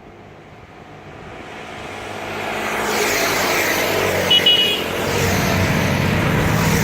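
Motorcycle engines grow steadily louder as a group of motorcycles approaches, then keep running loud, with a short high horn beep about four seconds in.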